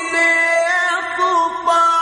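Quran recitation in the melodic tilawah style: one male qari's voice holding long, high notes with wavering ornaments and a few changes of pitch.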